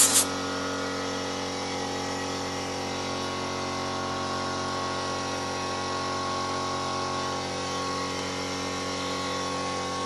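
A steady mechanical hum of many even tones, unchanging throughout, with a short hiss of spray right at the start.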